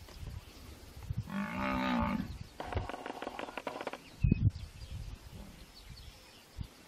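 African buffalo bellowing in distress as hyenas eat it alive: a short moaning call about a second and a half in, then a longer call right after. A brief low thump follows about four seconds in.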